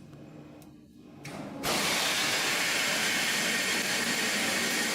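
A steady, even hiss of rushing air or machine noise, starting abruptly about a second and a half in after a faint low hum.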